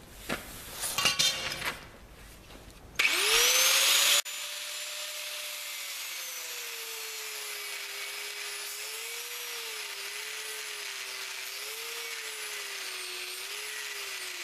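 A few knocks, then an angle grinder fitted with a thin 1 mm cutting disc spins up about three seconds in, its whine rising quickly. It then cuts through two bolted-together steel harvester chainsaw bars, the whine dipping and wavering in pitch under cutting load, and the sound stops abruptly at the end.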